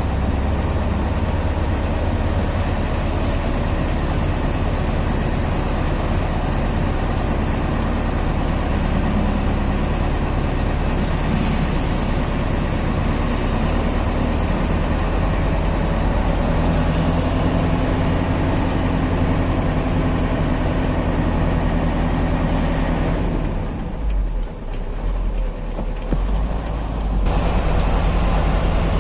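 Heavy truck on the move: a steady low engine drone under broad road noise. About three-quarters of the way through, the higher road noise drops away for a few seconds, leaving the low drone, and then comes back.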